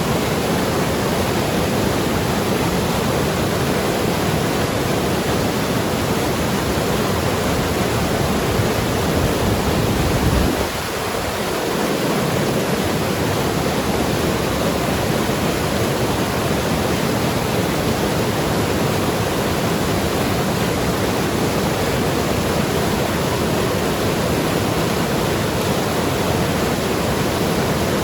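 Mountain river rushing and gurgling over rocks in a steady, full rush of water. About ten seconds in, the deep rumble briefly drops, then returns.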